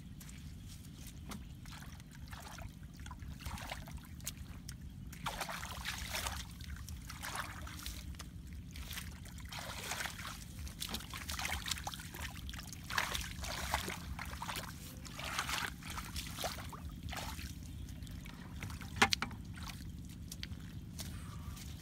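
Shallow muddy water sloshing and trickling in irregular splashes as someone wades and works with their hands in a flooded ditch, over a steady low rumble. A single sharp knock near the end is the loudest sound.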